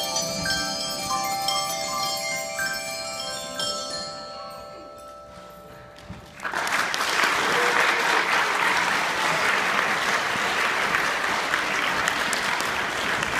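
Mallet percussion notes ring out as a song ends and die away, then an audience bursts into applause about six seconds in and keeps clapping steadily.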